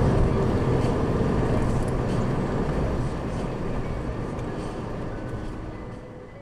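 Steady road and engine noise inside a car's cabin as it drives along a paved road, fading out gradually toward the end.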